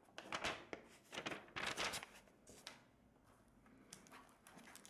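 Faint rustling of a paper leaflet and packaging being handled, in short bursts over about the first three seconds, then a few soft handling sounds near the end.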